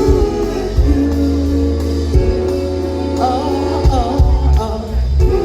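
Live band playing a slow R&B/hip-hop groove, with a bass line, drums and a wordless sung line that bends up and down in the middle.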